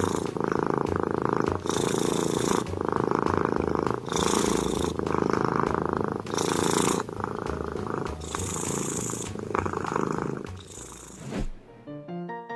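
Domestic cat purring loudly right at the microphone, rising and falling with its breaths about every two seconds. Near the end the purring stops and music with short plucked notes starts.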